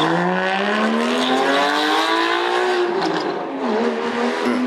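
Porsche 911's flat-six engine accelerating hard, its pitch climbing steadily, then dropping with an upshift about three and a half seconds in before climbing again.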